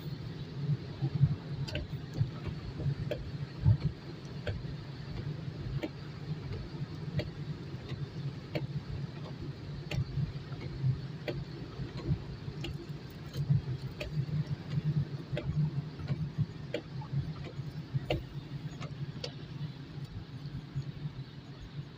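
Steady low road and engine noise inside a car moving on a wet road, with scattered sharp ticks at irregular intervals, consistent with raindrops striking the windshield.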